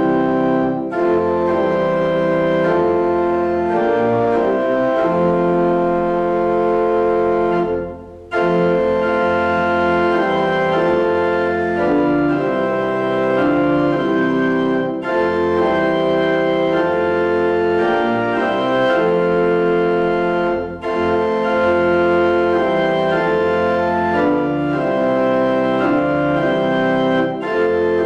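Church organ playing a Lutheran Advent hymn tune in full, sustained chords, phrase by phrase, with short breaks between the lines and a clear pause about eight seconds in.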